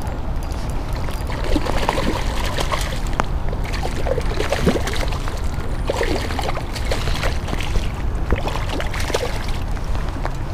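Hooked rainbow trout splashing and thrashing at the surface as it is reeled in to the bank, over a steady low rumble.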